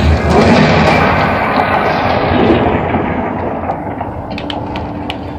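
A film's loud sound effect played through a home theater system, a Cerwin Vega VS-120 tower speaker with a 12-inch woofer up close: a sudden burst of deep noise at the start that slowly dies away over about four seconds.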